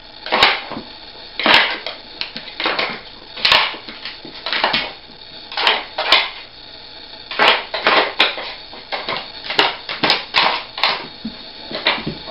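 Plastic pieces of a Nina Ottosson Dog Brick puzzle toy clattering and knocking as a dog slides and flips them to get at treats: irregular sharp knocks and rattles, sometimes several close together.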